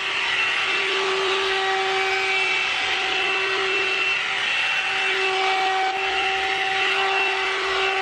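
One-step hot air brush (hair dryer and styler) running: a steady motor whine over a rush of air. Its tone breaks off briefly twice, about three and five seconds in.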